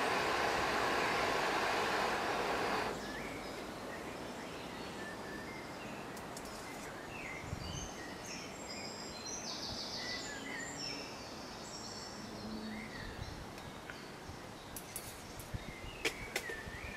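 Hanging gas camping stove burner and boiling kettle hissing steadily, cut off suddenly about three seconds in. Then woodland birds chirping, with a few sharp metal clinks near the end.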